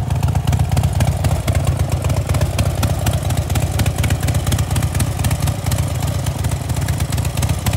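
2013 Harley-Davidson Dyna Wide Glide's V-twin engine idling steadily, with a low, rapid pulsing.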